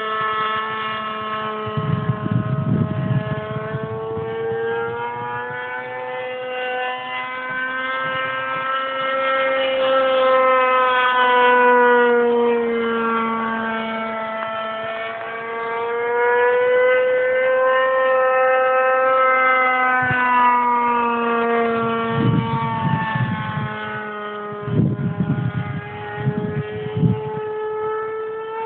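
An RC model airplane's SC40 two-stroke glow engine running in flight, a high buzz whose pitch slowly rises and falls as the plane flies its circuits. Bouts of low wind rumble on the microphone come in near the start and again near the end.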